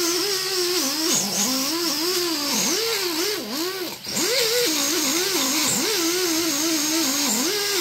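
Ingersoll Rand 90-degree air tool buffing a cast-iron manifold gasket surface with light pressure. Its whine sags in pitch each time the pad bites and recovers as it eases off, with a short let-up about four seconds in.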